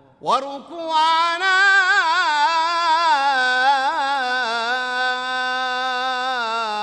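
A solo voice chanting a Ramadan pre-dawn (suhur) supplication in the Damascene style, unaccompanied. It swoops up into the word 'wa-ruku'ana' a moment in and draws it out in one long, ornamented melodic line.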